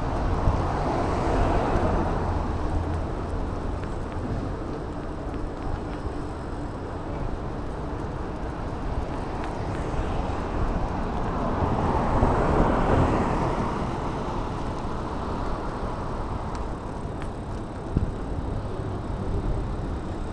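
City road traffic heard from a bicycle: a steady road hum, with vehicles passing close by twice, once about a second in and again around twelve seconds.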